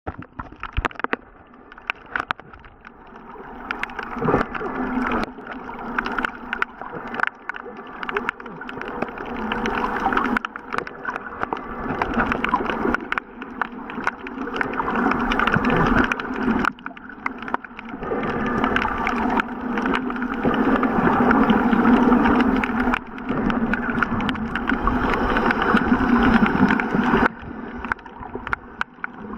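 Muffled underwater water noise through a submerged waterproof camera: water sloshing and bubbling, with many small clicks and knocks, swelling and fading unevenly.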